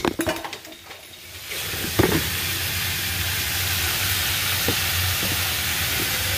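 Vegetables and shrimp sizzling steadily in a nonstick frying pan over a gas burner. The hiss dips for about a second near the start, and there is a sharp knock about two seconds in.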